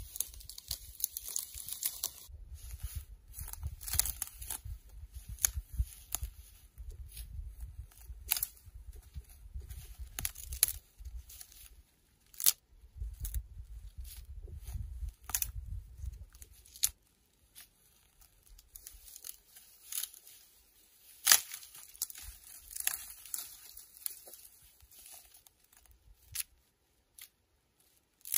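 Dry dead branches and twigs being snapped off by hand: an irregular run of sharp cracks and snaps, with rustling of the twigs in between.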